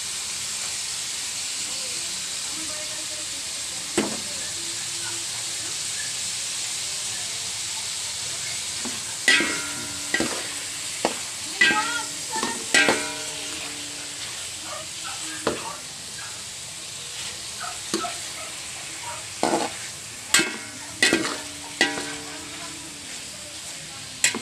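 Sliced kikiam and chicken liver frying with a steady sizzle in a large stainless steel wok. After the first third, a metal ladle stirs them, clanging and ringing against the pan many times.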